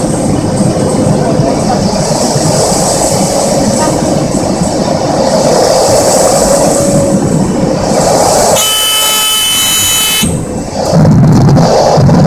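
Cessna 208 Caravan's turboprop engine and propeller droning in the cockpit, with wind noise, on final approach. About two-thirds through, a steady warning tone sounds for about a second and a half and cuts off suddenly, typical of the stall warning horn in the landing flare. Near the end the noise grows louder with a low rumble as the plane touches down on the dirt strip.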